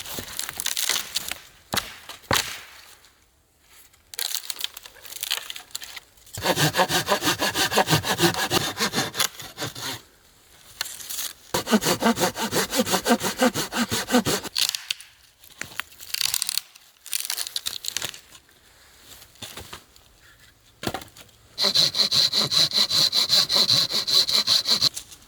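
Hand saw cutting dead branches into firewood, in three long bouts of quick, even back-and-forth strokes with shorter knocks and scrapes between them.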